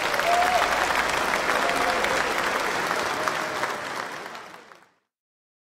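A large audience applauding steadily, then fading out and cutting off about five seconds in.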